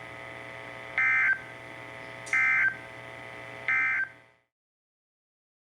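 NOAA Weather Radio KEC55 sending the SAME end-of-message code that closes the alert: three short bursts of warbling two-tone digital data, about a second and a third apart, over faint receiver hum and hiss. The signal cuts off suddenly after the third burst.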